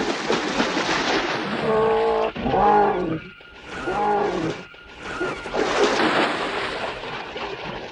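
Big cats, tiger and lion, snarling and roaring in a series of loud arched calls over a continuous rush of noise, with water thrashing and splashing as a tiger grapples with a person in a river.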